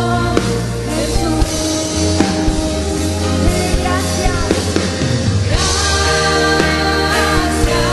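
Live Christian worship song: a woman singing in Spanish over keyboard and acoustic guitar, with bass and drums, playing on without a break.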